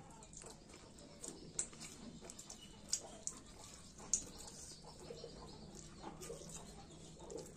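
Close-up eating sounds: chewing and lip smacking on rice and curry, with scattered wet clicks, the loudest about three and four seconds in.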